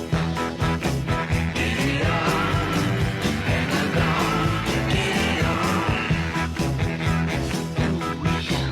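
Rock music with a steady beat, bass, and a singing voice or lead guitar line.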